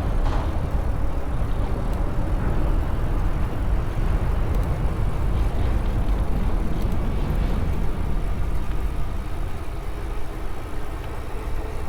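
Steady wind rush and rumble from riding an e-bike at speed, heaviest in the low end, easing a little near the end.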